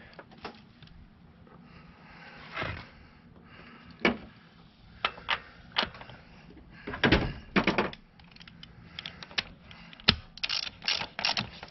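Oil filter housing cap being fitted and snugged with a socket extension and ratchet: scattered clicks and knocks of tool on the cap, then a quick run of ratchet clicks near the end as it is snugged down.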